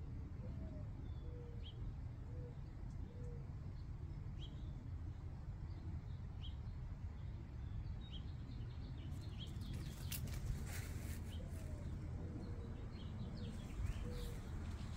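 Small birds chirping: short high chirps about once a second over a steady low background rumble. In the second half, rustling and brushing clicks from leaves being pushed through.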